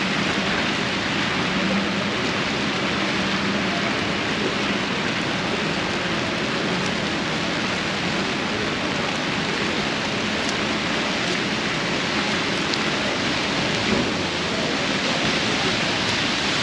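Heavy rain falling in a steady, even hiss, heard from under an umbrella.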